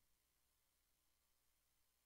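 Near silence: only a faint hiss, with no tractor engine or crowd heard.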